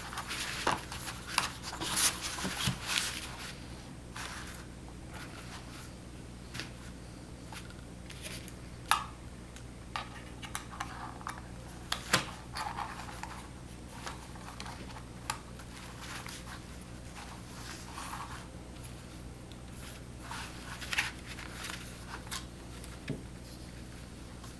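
Horizontal window blind being handled while new cord is pulled through the slats with a threader: rustling and scraping of cord and slats for the first few seconds, then scattered light clicks of the aluminium slats. A steady low hum runs underneath.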